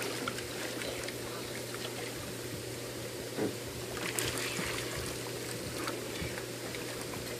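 Hot tub water trickling and churning, with a steady low hum underneath.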